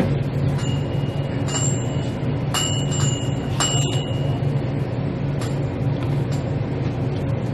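Steady low background hum, with several light clinks of eating utensils against a bowl in the first half.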